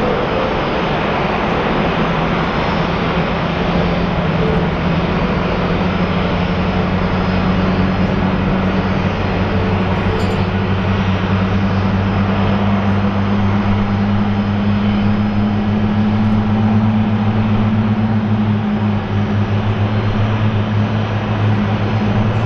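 Airbus A330-300's Pratt & Whitney PW4000 turbofan engines during takeoff: a loud, steady jet noise with a low drone that rises slightly in pitch.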